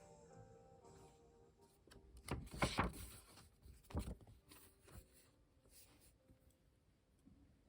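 Desk sounds of hand journaling: paper and stationery rustling and light taps, loudest about two and a half seconds in, with a few more taps around four and five seconds. Music fades out near the start.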